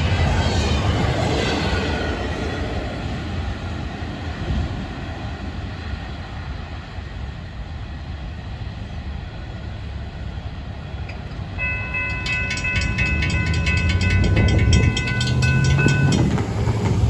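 Freight cars of a passing intermodal train rumbling on the rails, fading out after a couple of seconds. Later, a level-crossing warning bell rings rapidly for about four seconds as the gates go up, then stops abruptly; car and pickup engines follow as road traffic moves off over the crossing.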